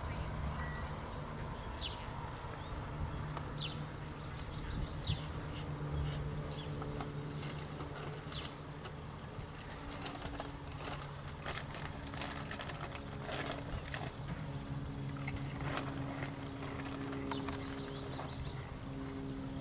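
Hoofbeats of a dressage horse working over sand arena footing, heard as irregular soft thuds. Short high bird chirps come in the first few seconds and near the end, over a steady low hum.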